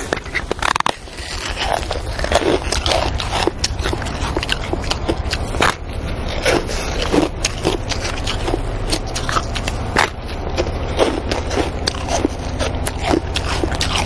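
Ice being bitten and crunched close to the microphone: many irregular sharp crunches in quick succession, over a steady low rumble.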